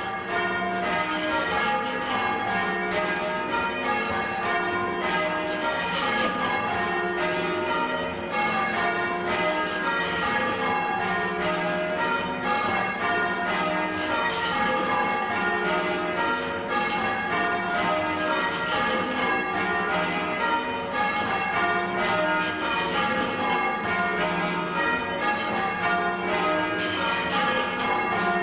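Church bells being rung in changes (change ringing): a continuous run of bell strokes, each ringing on into the next.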